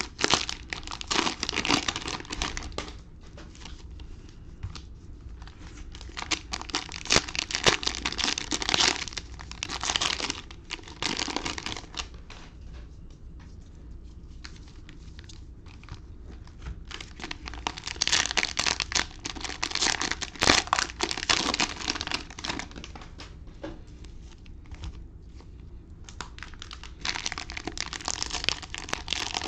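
Cellophane wrappers of basketball trading-card cello packs crinkling and tearing as they are opened by hand, in several bouts of a few seconds each with quieter gaps between.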